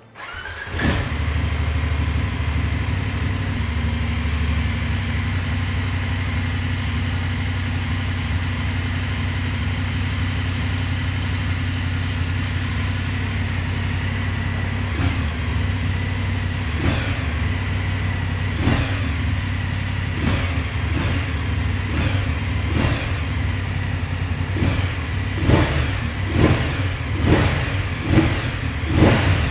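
BMW F850GS parallel-twin engine starting on the button, settling into a steady idle, then blipped with the throttle from about halfway on, the short revs coming closer together toward the end. Its altered firing interval gives it a V-twin-like sound.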